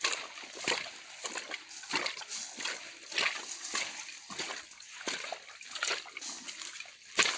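Footsteps crunching on a path of dry leaves, twigs and grass at a steady walking pace, about one step every two-thirds of a second, with one sharper, louder crunch near the end.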